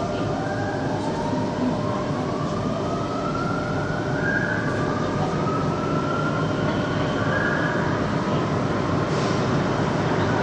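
Metro train in motion: a steady rumble of wheels on the track with the electric traction motors whining, the whine rising in pitch over several seconds and then rising again as the train gathers speed.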